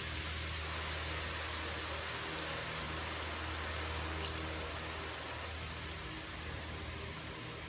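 Faint steady hiss with a low steady hum beneath it.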